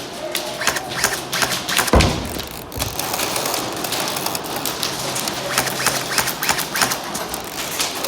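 Irregular sharp clicks and snaps, with one heavy thump about two seconds in.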